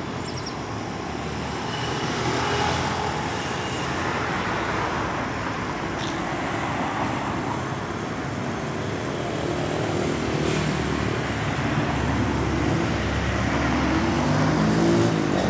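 Street traffic: the steady noise of road vehicles running past, with a vehicle's engine growing louder toward the end.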